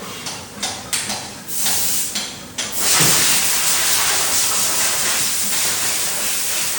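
High-pressure spray hissing: a few short bursts, then a steady, loud jet from about three seconds in.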